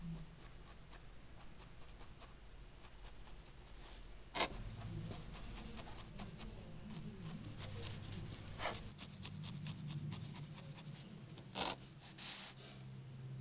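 Wool fibre being rolled by hand and jabbed with a barbed felting needle into a foam pad: scratchy rubbing with a run of quick small ticks. Two sharp loud clicks stand out, about four seconds in and near the end.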